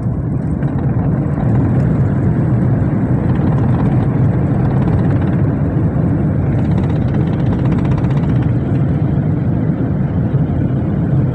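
Airliner during landing, a loud, steady, low rumble of engines and airflow that swells slightly about a second and a half in.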